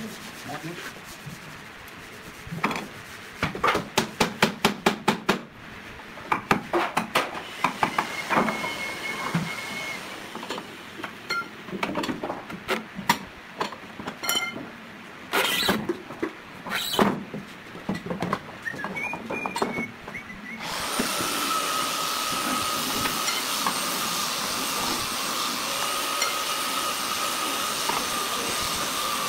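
Wooden mallet knocking on a chisel and the wooden door frame: a quick run of about ten sharp blows about four seconds in, then scattered knocks. About 21 seconds in, a power tool starts and runs steadily with a high whine.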